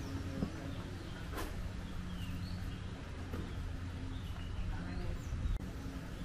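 Outdoor garden ambience: faint, scattered short bird chirps over a low steady hum.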